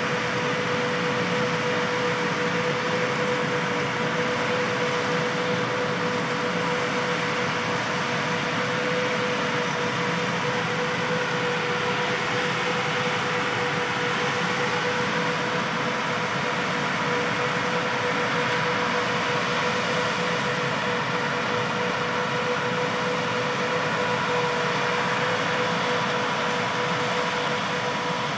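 John Deere 8000R-series tractor and the Amadas peanut combine it pulls running steadily while picking peanuts: an even machinery drone with a constant whine.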